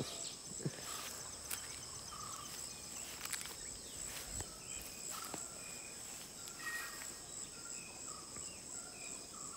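A steady, high-pitched insect chorus with an even pulse, with short bird chirps here and there and a few faint clicks.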